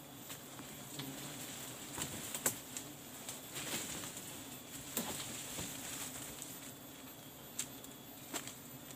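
Scattered light crackles and snaps, like twigs and leaves being disturbed, over a faint steady background hum. The clicks come irregularly, with the sharpest ones about two and a half seconds in and again around five seconds.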